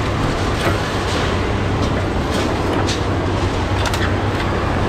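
Diesel engine of a scrap-handling excavator with an orange-peel grapple running steadily with a low hum, with a few sharp metallic clanks and clicks scattered through it.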